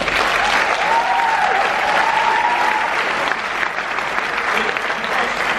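Audience applauding in a cinema hall; the clapping starts suddenly and holds steady. A long, wavering high note from someone in the crowd rides over it for about two seconds, starting about a second in.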